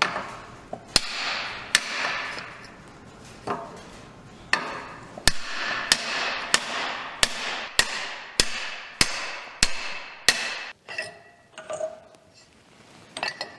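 Hammer blows on a length of old exhaust pipe, driving a new carrier bearing onto a drive shaft through a bearing-race driver; each blow rings in the pipe. About fourteen strikes, coming faster, roughly one every half second to second, then a few lighter metal clinks near the end.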